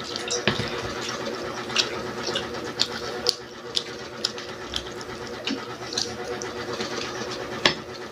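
Person chewing crunchy fried food close to the microphone: irregular sharp crunches and mouth clicks, with one louder crunch near the end, over a steady electric hum.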